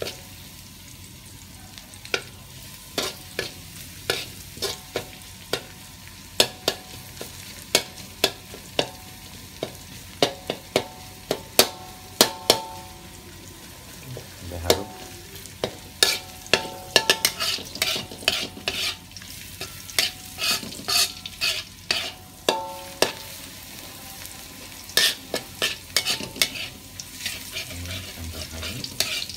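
Metal spatula scraping and tapping against a wok in irregular clicks, denser in the second half, as minced garlic is stirred, with the wok ringing briefly after some strikes. Under it, a soft steady sizzle of the garlic frying in oil over a low flame.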